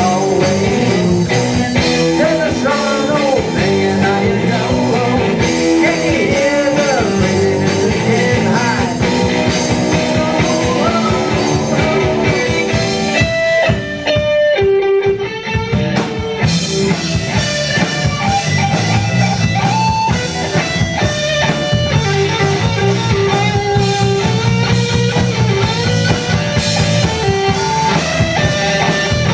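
Rock band playing live, guitars over a drum kit. About 14 seconds in the drums drop out for a couple of seconds, leaving a few guitar notes alone, and then the full band comes back in.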